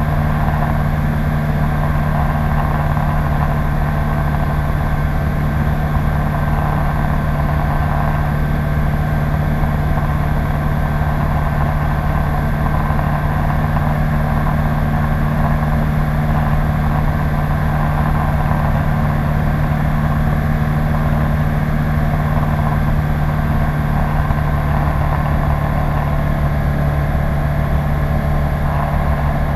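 Light aircraft's Rotax 912 engine and propeller running steadily at constant power, a continuous even drone with no change in pitch or level.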